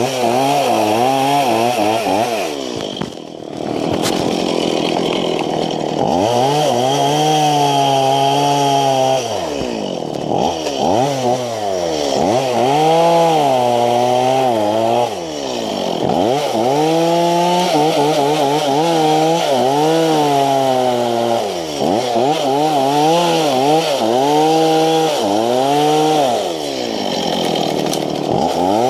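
A two-stroke chainsaw running loud, its engine pitch climbing and falling over and over as the throttle is opened and eased off, with a brief dip to a lower speed about three seconds in. It is cutting through brush and small tree trunks.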